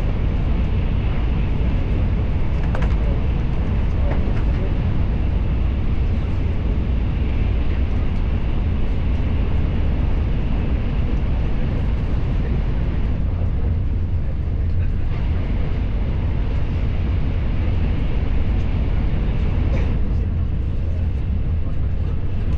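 Steady low rumble and hiss of a moving vehicle heard from inside, unchanging throughout, with faint voices in the background.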